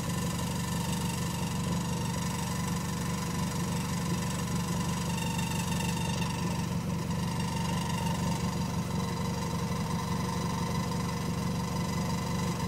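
Scion tC's four-cylinder engine idling steadily, with a ticking, vibrating sound from the exhaust.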